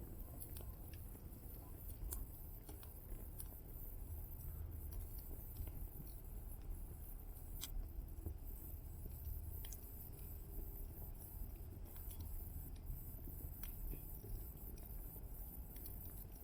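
Small wood fire burning in a titanium solo fire stand, crackling with irregular sharp pops over a low steady rumble.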